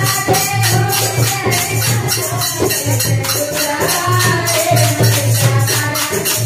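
Women singing a Hindu devotional bhajan (kirtan) to the goddess, with steady rhythmic jingling hand percussion and a repeating low beat underneath.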